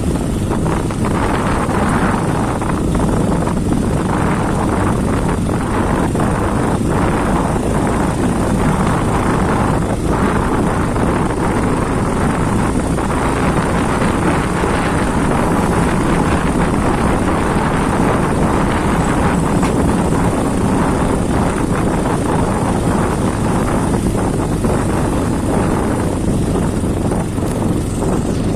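Motorcycle engine running steadily while riding, with wind on the microphone.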